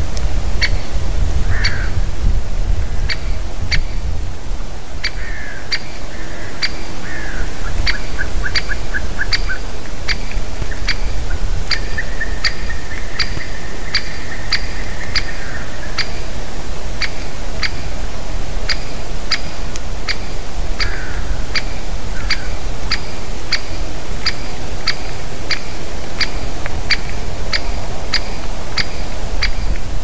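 Great spotted woodpecker giving its sharp, single "kix" calls over and over, about two a second, with a short pause about four seconds in. Other birds call farther off now and then, and wind rumbles on the microphone.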